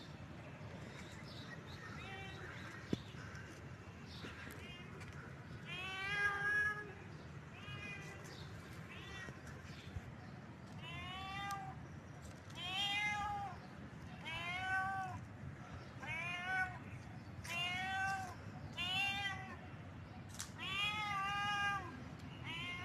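Domestic cat meowing over and over, about fourteen short arching meows with pauses between them, faint at first and louder from about six seconds in.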